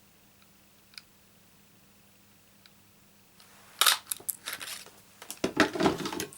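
Cardstock and a small paper craft punch being handled: a quiet stretch, then from about four seconds in a run of sharp clicks and crackling, crinkling paper.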